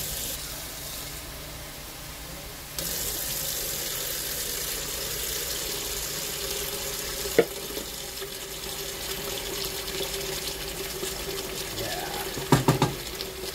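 Kitchen tap turned on about three seconds in and running steadily. There is one sharp click about halfway through and a few knocks near the end.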